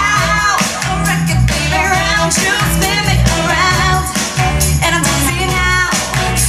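Pop song playing, with sung vocal lines over a steady bass beat.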